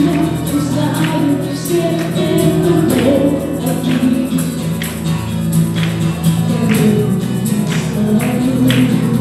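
Live Christian praise and worship music: a band of keyboard, bass guitar and acoustic guitar playing a steady beat while a group of singers sings along.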